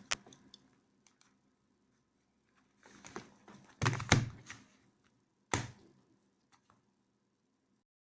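A few knocks and thuds with some rustling handling noise between them; the loudest is a pair of thumps about four seconds in, with one more about a second and a half later, and the sound cuts off abruptly near the end.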